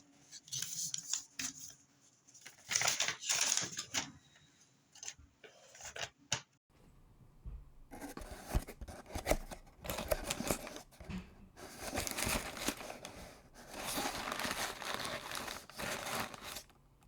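A shipping package of bullion coins being opened by hand: tape and packaging tearing and packing material crinkling in irregular scratchy rustles, with a short lull partway through.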